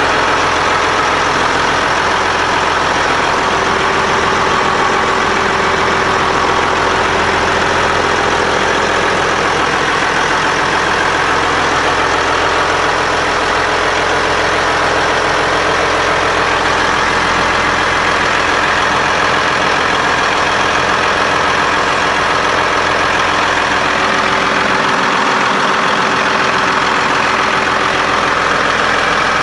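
The Caterpillar 988H wheel loader's C18 diesel engine running steadily and loudly, heard up close with the engine covers open.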